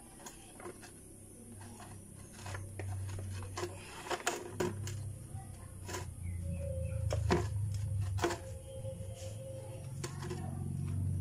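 Scattered small clicks and metal taps of a drain cover being unscrewed by hand from the underside of a motorcycle engine's crankcase. A low hum comes in a couple of seconds in and grows louder toward the end.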